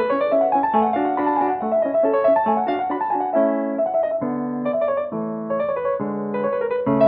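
Piano music, a flowing melody over held chords.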